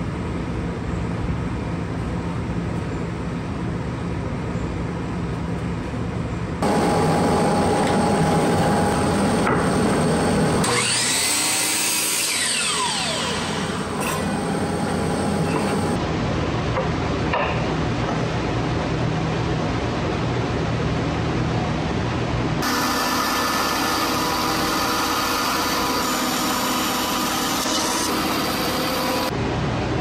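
Bandsaw running and cutting through a pale wood blank fed along its fence, a steady sawing noise that changes abruptly several times, with a sweeping rise and fall in pitch about a third of the way in.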